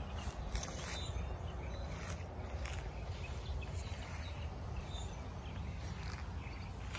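Outdoor yard ambience: a steady low rumble with faint bird chirps and a few soft clicks.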